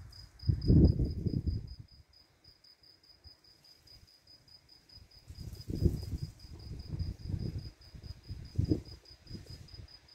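A cricket chirping steadily, a high pulse repeating about four times a second. Louder low rumbling bursts come about half a second in and again from about five and a half seconds in.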